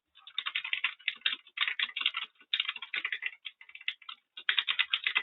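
Very fast typing on a computer keyboard: rapid runs of key clicks in several bursts, broken by short pauses.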